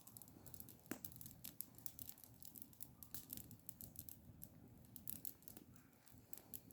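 Campfire crackling faintly: irregular small snaps and pops of burning wood, with one sharper pop about a second in.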